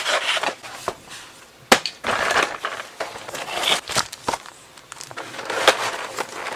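Clear plastic clamshell trays and a cardboard box being handled during unboxing: irregular crinkling and rustling, with a few sharp plastic clicks.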